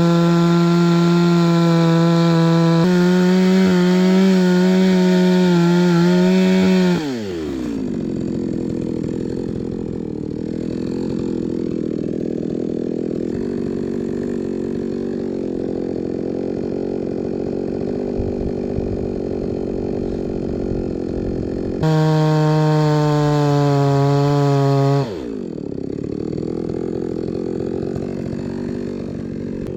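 Two-stroke chainsaw held at full throttle, its pitch wavering slightly, then dropping to idle about seven seconds in. It idles for a while, revs up high again for about three seconds, and falls back to idle near the end.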